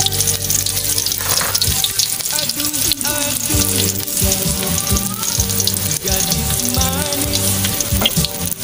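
Sliced shallots frying in hot oil in a steel wok: a steady, dense sizzle with fine crackling.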